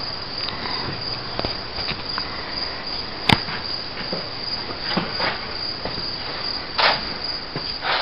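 Steady high-pitched insect trilling, with a sharp click a few seconds in and a couple of soft knocks or rustles later on.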